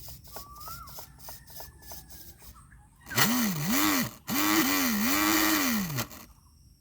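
Small electric motor of a homemade RC boat revved up and down in two loud bursts, about three seconds in, its whine swooping up and falling back several times. Before that, faint ticking and a single bird chirp.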